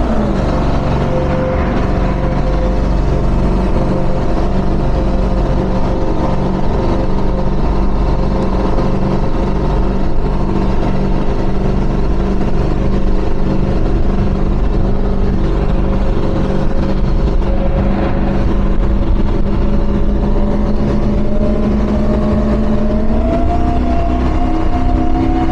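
Engines of a 2400-horsepower 2009 Donzi 38 ZRC race boat running hard at speed, a steady loud engine note with wind and water rush. Near the end the pitch rises as the engines rev up and the boat accelerates.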